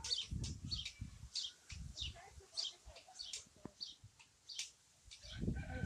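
Songbirds chirping, short high chirps repeated every half second or so, with strong wind gusting on the microphone in low rumbles near the start, around two seconds in and again near the end.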